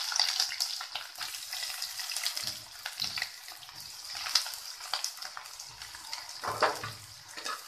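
Sliced onions sizzling and crackling in hot oil in a karahi, the hiss strongest at the start and easing off, with a few louder crackles near the end.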